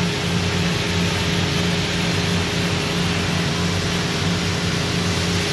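Through-spindle coolant of a Mori Seiki NH6300DCG II horizontal machining center spraying against the inside of the enclosure: a steady hiss of spray over a steady machine hum.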